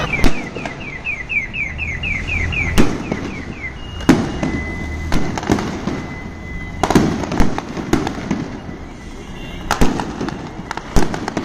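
Aerial fireworks going off overhead: sharp bangs at irregular intervals, single and in quick clusters, with a tight group about seven seconds in and another near the end.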